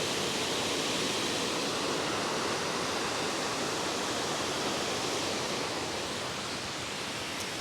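Waterfall in strong flow: a steady, even rush of falling water that eases slightly toward the end.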